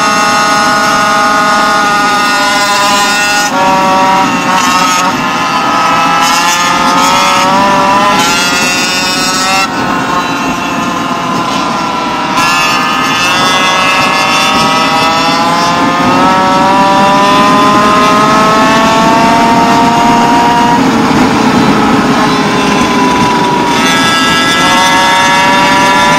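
Small two-stroke engine of a gas go-ped running hard at speed. Its pitch climbs steadily as it accelerates and drops back when the throttle is let off, about ten and twenty-one seconds in. Other go-ped engines run alongside at their own pitches.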